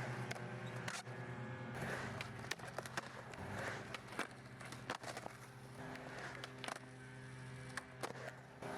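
Skateboard rolling on a concrete skate park surface, with a run of sharp clacks and knocks from the board and wheels.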